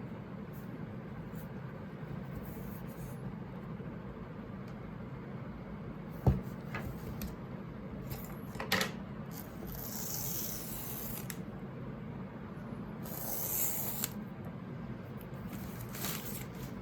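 An iPad box and its packaging being handled and opened: one sharp knock about six seconds in, a few clicks, then two stretches of hissing, sliding rub, over a steady low hum.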